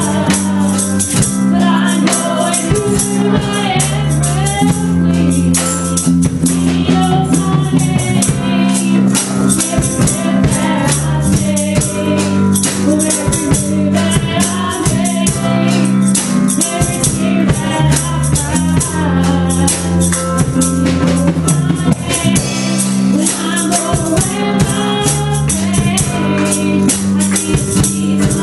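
Live gospel band playing a song: a woman sings lead into a microphone over a drum kit, keyboard and guitar, with a steady bass line and shaken percussion keeping the beat.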